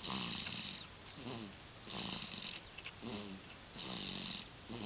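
Rhythmic snoring, three breaths about two seconds apart: each a hissy breath followed by a short, pitched snore.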